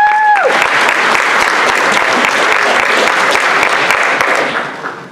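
Audience applauding: dense clapping that dies away over the last second.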